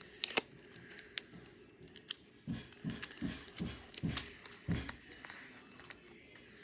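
Scotch tape being handled and pressed into place by hand: sharp clicks and crinkles near the start, then about six short rubbing strokes in quick succession midway.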